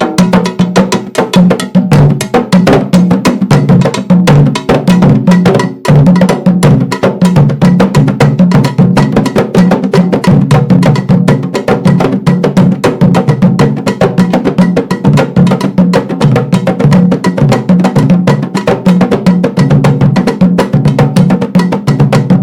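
Afro-Brazilian percussion ensemble of drums and a metal bell playing a Jurema toque in the Pernambuco style: a fast, steady rhythm of dense strikes over a repeating low drum pattern, with a brief break about six seconds in.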